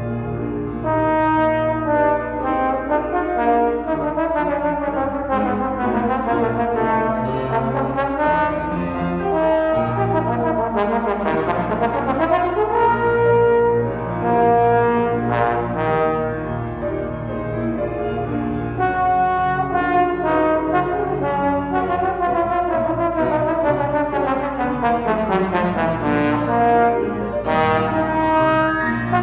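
Slide trombone playing a solo with grand piano accompaniment, continuous music with several quick runs of notes sweeping down and up.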